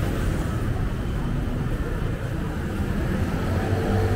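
Street traffic rumble from passing motorbikes and cars. A motorbike engine draws closer and gets louder near the end.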